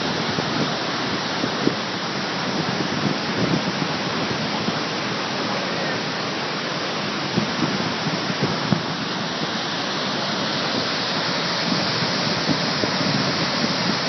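Waterfall: a steady rush of falling water, with a few brief low bumps about a second and a half in and again around seven to nine seconds in.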